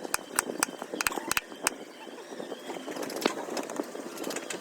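Mallet striking a wood-carving chisel: a quick run of sharp, irregular taps in the first second and a half, then a single tap about three seconds in, over a low background murmur.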